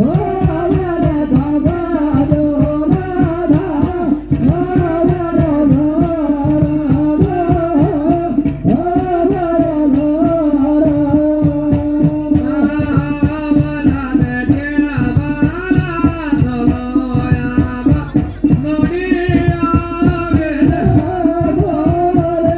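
Pahari folk music accompanying a masked dance: a melody bending up and down over fast, steady drumming.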